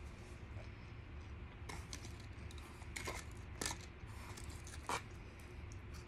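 A few short crackles and crinkles, the loudest about five seconds in: a paper napkin being handled, then crisp tortilla chips picked from a foil tray and bitten.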